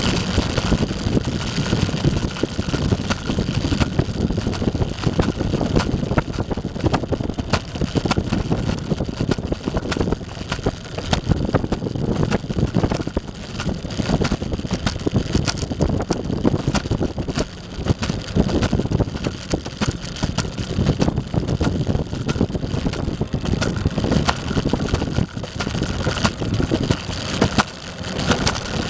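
Eglide 42 Special electric skateboard rolling along pavement: a steady rumble from the wheels with dense, continuous rattling and clatter, picked up by a camera mounted on the board.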